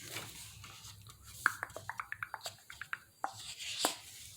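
A quick run of light clicks and taps lasting about a second and a half, then a single louder click near the end.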